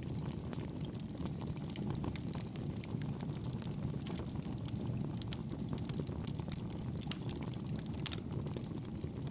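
Wood fire crackling, with frequent irregular snaps over a steady low roar.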